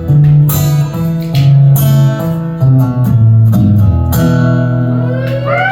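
Acoustic guitar strumming the closing chords of a song, several hard strums in the first four seconds, then a final chord left to ring and fade.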